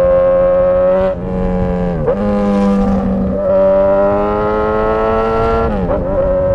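Straight-piped Suzuki GSX-S1000 inline-four engine running loud under way, holding a steady drone that climbs slowly in pitch. The revs drop briefly and pick back up about a second in, about two seconds in and near the end, as gears are changed.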